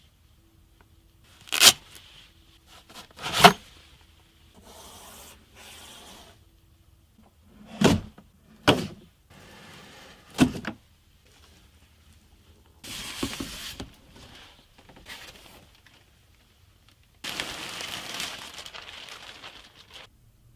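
A PC case being unboxed: its packaging is handled with about five sharp knocks and thuds, between them stretches of rubbing, scraping and tearing. The longest scrape comes near the end.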